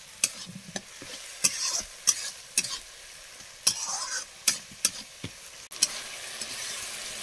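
Onion-tomato masala sizzling as it fries in oil in a metal kadai, while a steel spatula stirs it with sharp, irregular clinks and scrapes against the pan about twice a second. Near the end the scraping stops and only the steady sizzle is left.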